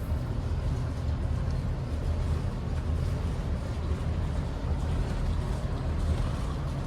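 A boat's engine running steadily at low speed, a continuous low hum with a light hiss over it.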